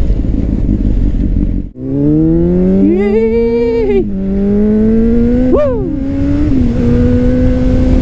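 2009 Honda CBR600RR inline-four with a Leo Vince exhaust, heard from the rider's seat over wind rush. The revs climb under acceleration and drop with an upshift about four seconds in, climb again with a brief sharp rise and fall in pitch, then settle to a steady cruise.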